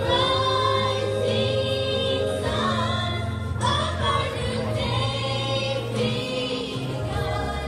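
A group of young girls singing together, over an accompaniment of steady held low notes.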